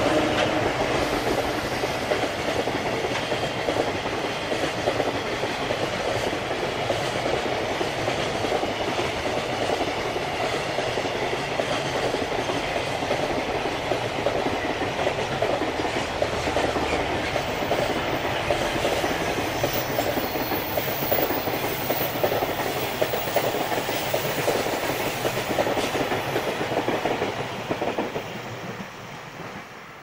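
A long container freight train hauled by a JR Freight EF210 electric locomotive passing close by, its wagon wheels clattering over the rail joints. The noise holds steady, then fades near the end as the last wagons go by.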